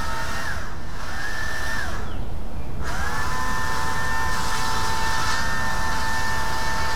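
Chainsaw engine running at high revs. Its pitch dips briefly twice in the first two seconds and drops away for a moment, then it runs steady and high.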